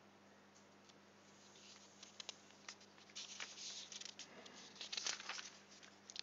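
Faint, scattered clicks and soft rustling, building up after a quiet first second or so.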